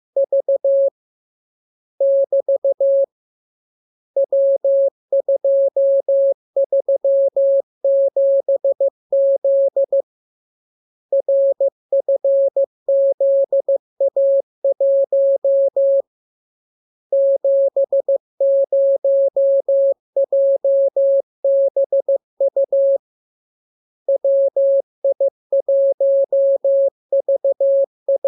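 Morse code sent as a single steady mid-pitched tone keyed into short and long beeps (dits and dahs), in groups of characters about one to two seconds long with pauses of about a second between them.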